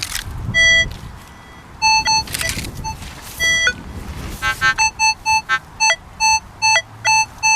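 Minelab CTX 3030 metal detector sounding its target tone: short electronic beeps as the coil is swept over the dug hole, signalling that the metal target is still in the ground. A few beeps come singly early on, with brief rustling in between, then they quicken to a rapid run of about three beeps a second from about halfway.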